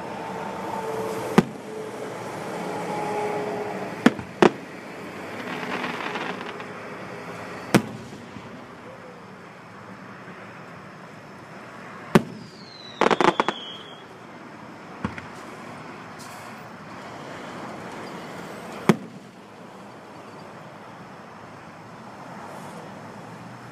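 Aerial fireworks shells bursting: sharp booms every few seconds, with a quick run of crackling reports and a brief falling whistle about halfway through, over steady background noise.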